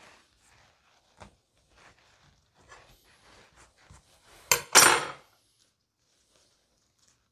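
Kitchen dishes and utensils being handled: soft knocks and scrapes, then a loud double clatter about four and a half seconds in.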